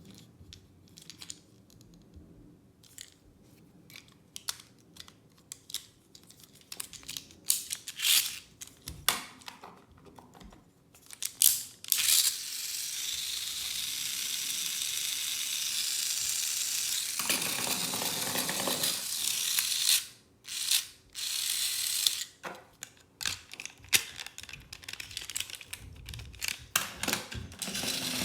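Hard plastic toy parts clicking and clattering as they are handled. About twelve seconds in, a Plarail toy train's small geared motor starts a steady whir, stops briefly and starts again among more plastic clicks.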